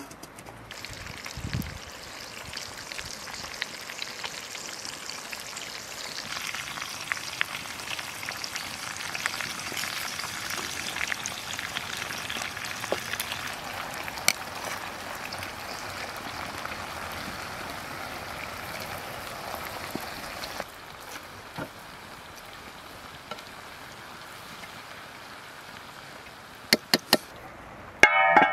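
Small fish sizzling in a frying pan, a steady frying hiss with scattered small clicks; the sizzle drops to a quieter hiss about two-thirds of the way through. Near the end, two sharp clicks and a ringing metal clank as a lid is set on the pan.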